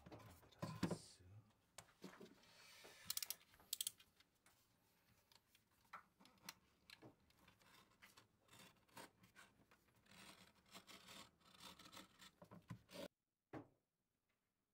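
Quiet rustling and scraping of a printed paper sheet handled and cut on a wooden workbench with a snap-off craft knife, with a few sharp clicks about three to four seconds in. The sounds stop suddenly near the end.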